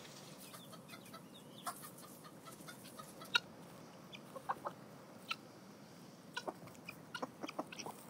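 Chickens clucking in short, scattered calls, the loudest about three and a half seconds in, with a quicker run of clucks near the end.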